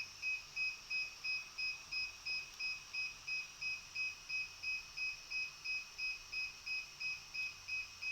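DJI Mavic 2 remote controller beeping in linking mode: a steady run of short, high beeps, about three a second, while it tries to pair with a drone that will not respond.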